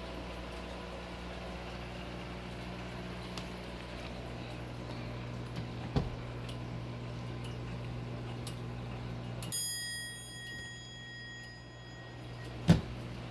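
A single metallic strike on a clock's bell, ringing with several clear high tones that fade over about two seconds. Around it there is a click about six seconds in and a sharp knock near the end, over a steady low hum.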